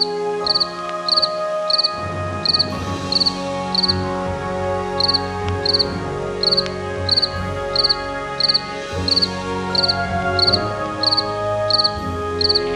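Insect chirping: a steady run of short pulsed chirps, about two a second.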